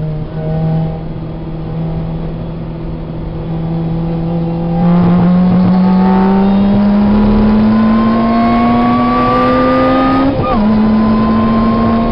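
Lotus Exige's four-cylinder engine heard from inside the cabin, holding a steady note at first. About five seconds in the throttle opens and the engine gets louder, its pitch climbing steadily under acceleration. About ten seconds in an upshift drops the pitch suddenly, and it pulls on in the next gear.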